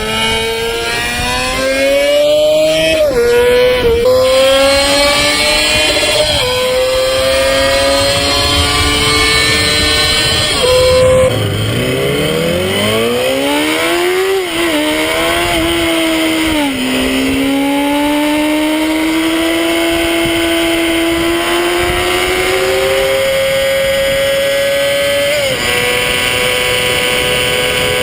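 Honda CBR250RR's 250 cc inline-four engine revving very high, pulling up through the gears with quick pitch drops at each shift, then easing off, revving up again and holding a steady high-pitched scream.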